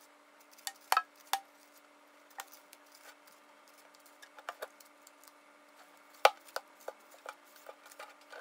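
Plastic hairbrush detangling a wet wig in a stainless steel sink: scattered light clicks and taps as the brush knocks and scrapes against the steel, a few of them sharper, over a faint steady hum.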